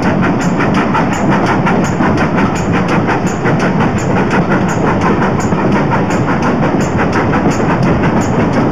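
Steam locomotive exhaust beating in a steady, even rhythm over the low rumble of the coaches running on the rails, heard from a coach window.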